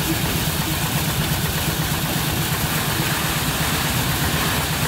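MZC-4B threshing machine running steadily while sheaves of grain are fed into its drum, a continuous mechanical drone with a strong low hum.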